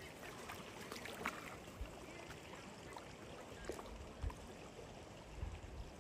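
Faint steady rush of a fast river, with light splashes of a dog wading in the shallows. A few low thumps come near the end.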